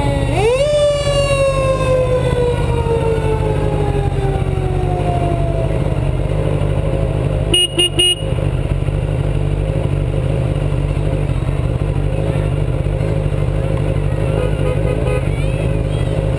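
Fire truck siren rising sharply, then winding slowly down over about five seconds. Three short horn blasts come about halfway, over a steady low engine rumble.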